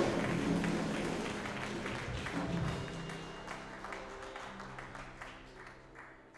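A church band's closing chord ringing on and fading away, with a congregation's applause over it that dies down.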